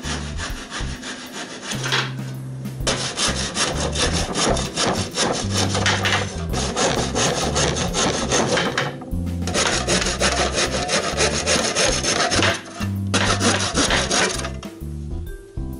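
Stanley wood hand saw cutting through the wooden bars of a crib: quick back-and-forth rasping strokes, stopping briefly three times.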